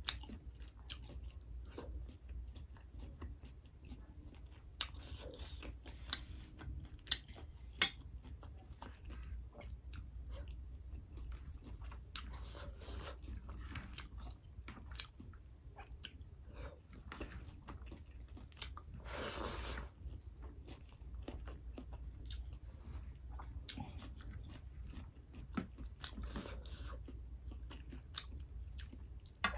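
Close-miked chewing and small wet mouth clicks of a person eating rice and meat by hand. There is one longer noisy sound about two-thirds of the way through.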